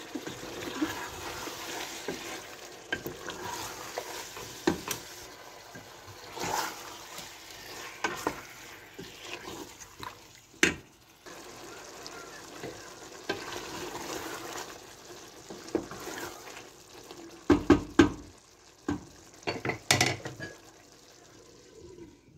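Mutton liver frying with a steady sizzle in a steel pot while a wooden spoon stirs it, with scattered knocks of the spoon against the pot. A few louder clanks come near the end as the pot's lid is handled and set on.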